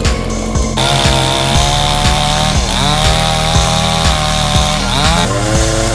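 Chainsaw running at high revs while cutting into a tree. Its engine note sags under load about two and a half and five seconds in, then picks back up.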